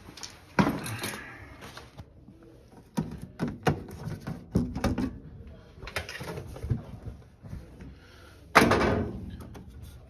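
Sheet-metal access door of a York gas furnace being taken off and handled: a bang about half a second in, a run of knocks and rattles between about three and five seconds, and a loud bang near the end.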